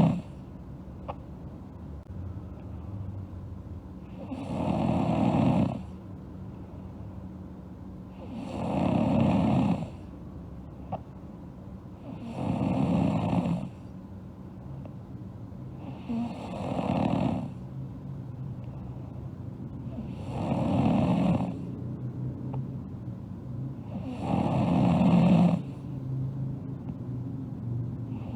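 A sleeping girl snoring in a slow, even rhythm: one snore about every four seconds, each lasting a second or so.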